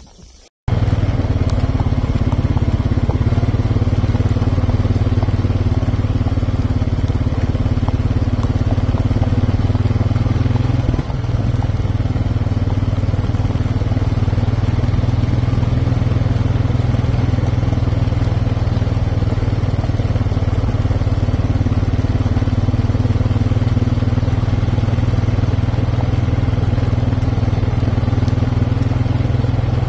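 A motor vehicle's engine running steadily at low speed, cutting in suddenly just under a second in.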